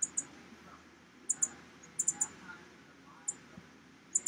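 Very high, thin chirps from a small animal, coming in quick pairs and a run of three about a second apart, over a faint steady low rumble.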